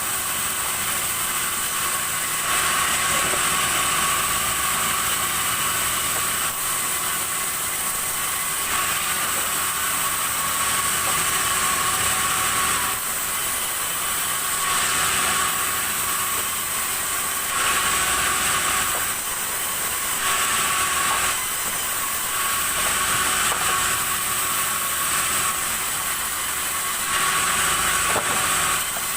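Sawmill saw running and cutting red timber, a steady loud machine noise with a high whine, the cutting hiss swelling and easing every few seconds.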